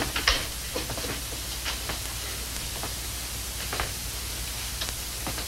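Footsteps on a hard floor, a light step roughly every second, over the steady hiss and low hum of an old film soundtrack.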